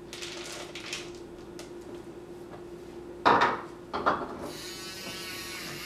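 Scraping and rubbing of a hand-held frother working cake batter in a plastic mixing bowl, with two short, louder sounds about three and four seconds in.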